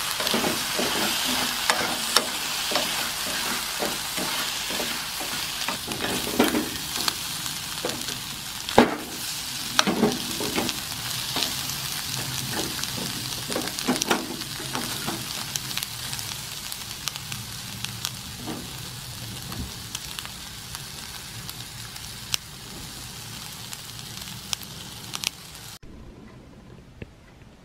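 Winged beans and sliced sausage sizzling in an oiled frying pan while being stir-fried, with many short knocks and scrapes of a spatula against the pan. The sizzle gradually fades, then stops suddenly near the end.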